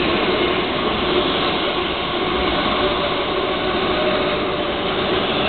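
Passenger train moving along a station platform at close range: a steady rumble and rush of the carriages going by, with a faint held tone running through it.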